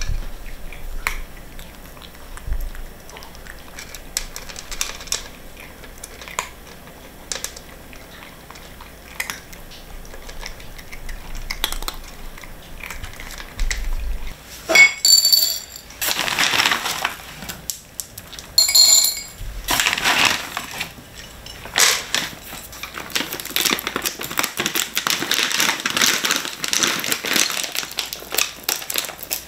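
Cats eating dry kibble from plastic bowls: small crunches and clicks scattered through. From about halfway on, a bag of cat food is handled, rustling and crinkling in loud stretches.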